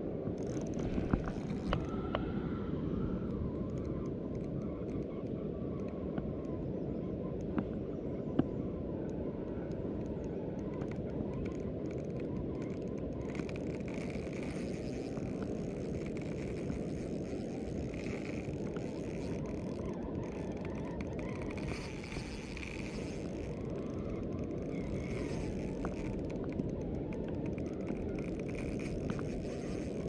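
Steady low rumble of wind on the microphone, with a few faint clicks.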